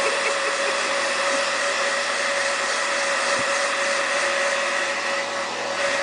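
Handheld hair dryer running on a steady blow: a constant rush of air with a steady whine, dipping slightly in level near the end.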